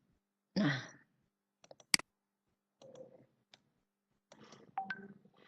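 A short voiced breath or sigh, then a single sharp click about two seconds in, with fainter scattered clicks and soft murmurs.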